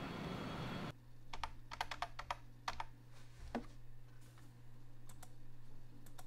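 Computer keyboard typed on: a quick run of key clicks, then a few scattered clicks in pairs, over a steady low electrical hum.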